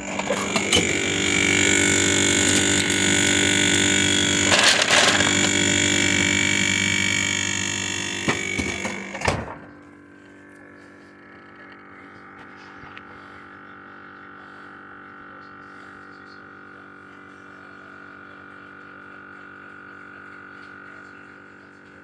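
Whirlpool WRF560SMYB refrigerator running with a loud hum made of several steady pitches. About nine seconds in there is a thump and the hum drops suddenly to a much quieter, muffled level that carries on. The noise is taken as a sign that the fridge is failing despite a recently replaced freezer fan.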